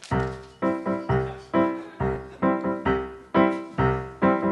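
Roland digital stage piano playing repeated chords, about two a second in a bouncing rhythm, each chord struck and fading before the next.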